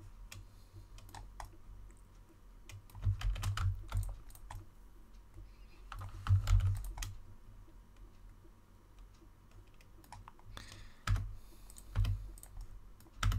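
Computer keyboard keystrokes in a few short clusters of clicks.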